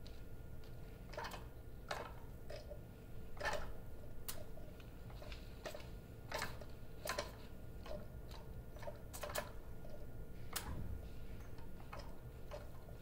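Small model steam engine rig making irregular sharp clicks and ticks, one or two a second at uneven spacing, over a low steady hum.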